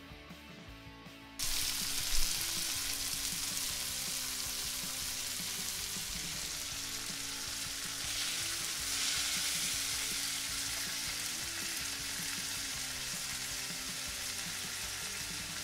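Bone-in meat chops and garlic cloves sizzling in hot oil in a frying pan. The steady hissing sizzle starts suddenly about a second and a half in.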